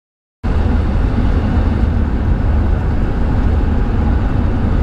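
Steady low rumble of a road vehicle driving along, engine and road noise, starting abruptly about half a second in.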